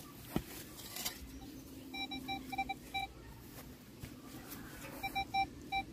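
Metal detector beeping in two quick runs of short, same-pitched beeps over a freshly dug hole, signalling that the metal target is still in the hole.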